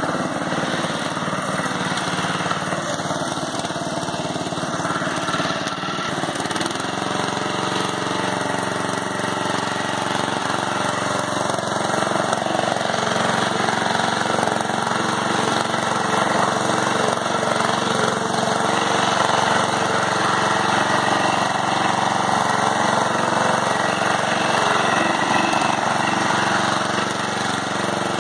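Murray riding lawn mower's engine running steadily under load as it drives through a deep mud hole, growing a little louder about halfway through.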